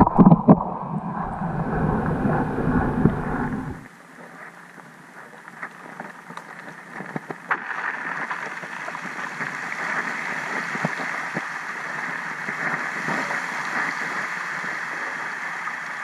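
Low rumbling wind or handling noise for about four seconds, then a sudden change to the steady muffled water hiss of an underwater camera beneath the ice, with scattered faint clicks.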